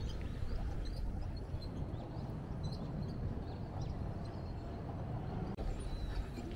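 Outdoor walking ambience: a steady low rumble with scattered faint, high bird chirps over it, and a brief dropout about two-thirds of the way in.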